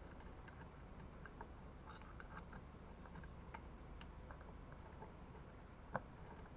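Faint, scattered light clicks and ticks of small hard parts being handled, with one sharper click near the end, over a low steady room hum.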